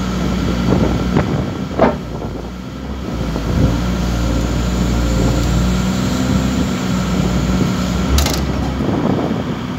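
Hydraulic excavator's diesel engine running steadily while its hydraulics close a CAT two-shell clamshell grab, with several sharp metal clanks and creaks in the first two seconds and a single sharp click near the end.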